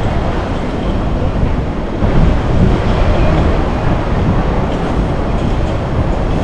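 Steady rumble of street traffic with a Hong Kong tram running on its street rails, growing a little louder about two seconds in.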